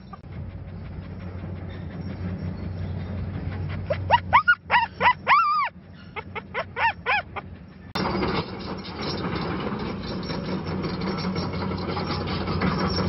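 A dog stuck fast in sticky rubberized asphalt gives a series of short, high, rising-and-falling distress cries, loudest about four seconds in, over a low steady engine hum. From about eight seconds in, heavy earthmoving machinery runs with a loud, steady diesel engine noise.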